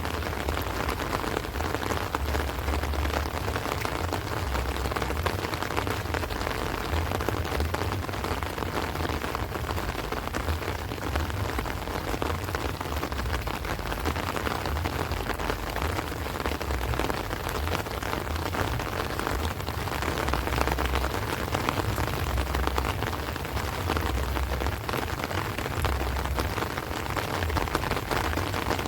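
Heavy rain falling steadily on rice plants and trees, a dense even hiss, with strong wind gusting as a low, uneven rumble underneath.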